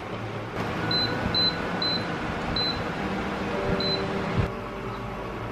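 Dowell induction cooker's touch panel beeping five short times, unevenly spaced, as the heat is turned down to a simmer, over a steady hiss, with a soft thud about four and a half seconds in.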